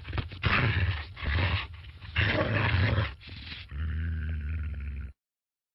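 Dog barking and growling: three harsh barks, then a lower, steadier growl that cuts off suddenly about five seconds in. In this comic advert the bark is given to a goldfish as its 'other language'.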